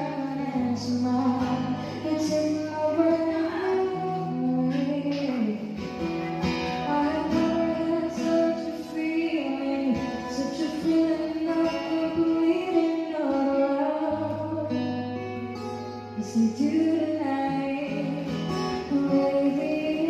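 Background pop song with acoustic guitar and a woman singing.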